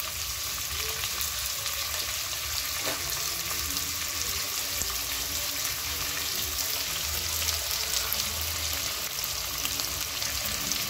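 Sliced red onion frying in hot cooking oil in a pot: a steady sizzle with dense, fine crackling.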